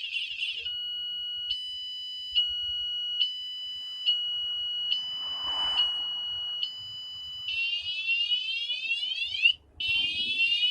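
Wireless anti-theft vibration alarm on a motorcycle sounding its full alarm, triggered by the bike being moved again after a warning. It is extremely loud and cycles through siren patterns: a fast warble, then a steady high tone alternating with a second pitch about once a second, then rapid repeated falling whoops from about seven seconds in.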